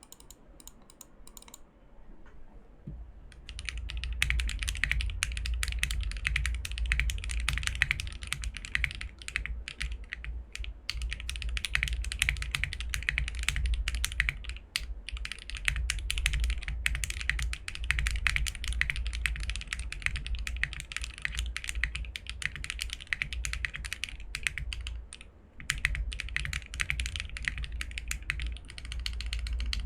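Typing sound test of a mechanical keyboard fitted with Akko x HMX Mirror switches in a top-mount POM-plate board with ePBT keycaps: a few scattered keystrokes, then fast, continuous clacky typing from about three seconds in, pausing briefly twice.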